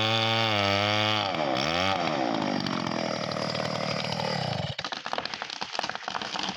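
Two-stroke chainsaw running steadily at high revs, then sagging and falling in pitch as it comes off full throttle about a second and a half in. Near the middle the engine sound drops out and a dense, irregular run of cracks and snaps follows.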